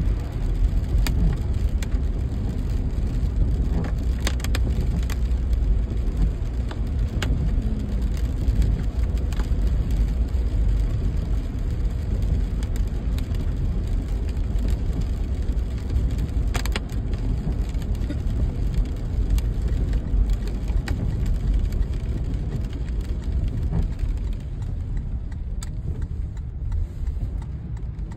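A car driving on a wet road, heard from inside the cabin: a steady low road and engine rumble with scattered sharp ticks. The higher hiss thins out near the end.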